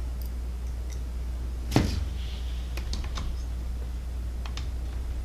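Small clicks of a screwdriver and screws against a 3D-printed plastic clock frame: one sharp click about two seconds in, then a few faint ticks, over a steady low hum.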